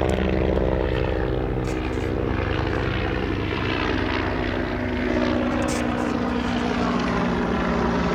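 Low-flying aircraft passing: a steady engine drone whose pitch slowly falls.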